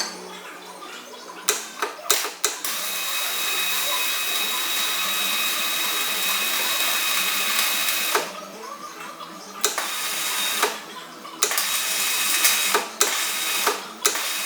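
Hand-held power tool running with a steady high whine over hiss for about five seconds, then starting and stopping in several shorter runs.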